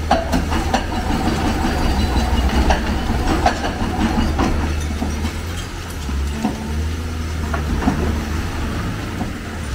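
Hyundai crawler excavator's diesel engine running steadily under load while it tears into a concrete building, with broken concrete and debris clattering and crashing down in many sharp knocks, thickest in the first half.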